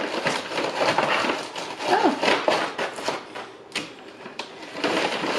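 Paper and packaging rustling and crinkling as fast-food items are handled, with many small clicks and taps.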